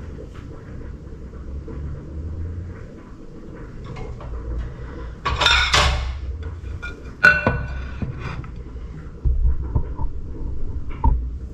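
Dishes being handled on a kitchen counter over a low rumble: a burst of clatter about halfway, a sharp click a couple of seconds later, and a white ceramic plate set down on a wooden cutting board near the end with a short knock and ring.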